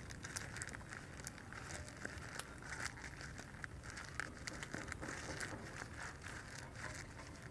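Banana leaves crinkling and rustling as a leaf-wrapped roll is folded and pressed down at the ends by hand, with faint, irregular crackles.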